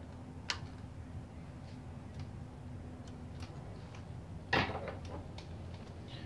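Small sharp clicks and taps of a screwdriver and hand tools against the metal of a motorcycle carburetor, with one louder short clatter about four and a half seconds in, over a low steady hum.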